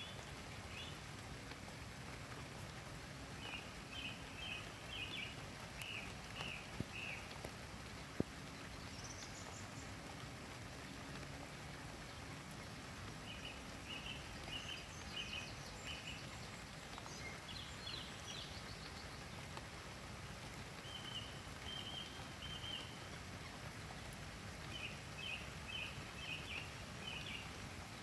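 Songbird singing about five short phrases of quickly repeated high notes, with pauses between them; the uploader takes the singer for a nightingale. Two sharp clicks come about seven and eight seconds in.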